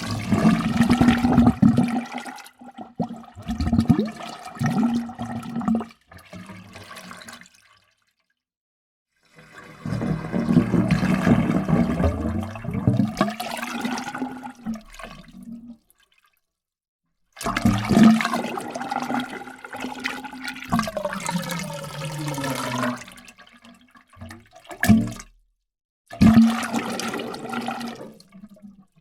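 Water gurgling in a run of separate takes, each a few seconds long, with short silences between them.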